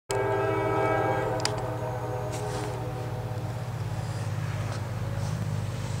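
CSX diesel locomotive's air horn sounding a chord for about a second and a half, then cutting off, over a steady low rumble that carries on.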